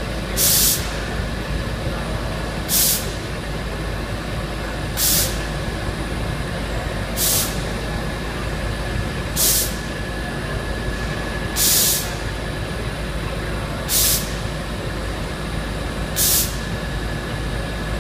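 GEMA powder coating booth running with a steady fan noise, broken by short, sharp blasts of compressed air hissing about every two seconds, eight in all: the pulse-jet cleaning of the booth's cartridge filters.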